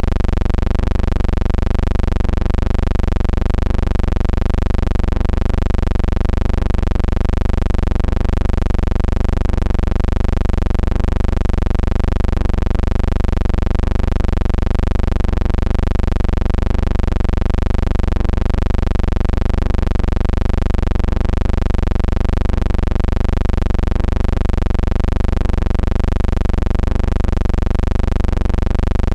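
A loud, steady low hum with a stack of overtones that waver evenly about twice a second. No crowd, commentary or game sounds can be heard.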